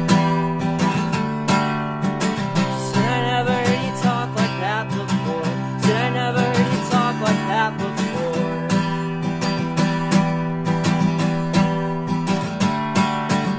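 Acoustic guitar strummed in a steady rhythm through an instrumental passage of a slow folk song, with a wavering higher melody line over it in the middle.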